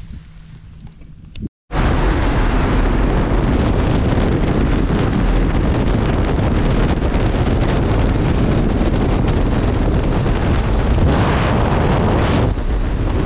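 Loud steady rush of wind and aircraft engine noise through the open door of a small skydiving plane at altitude, starting abruptly after a faint quieter stretch. It gets brighter and harsher for about a second near the end as the jumper looks out of the door into the airstream.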